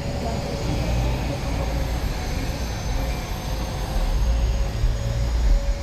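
A motor vehicle's engine running close by with a steady low rumble and a constant whine held over it.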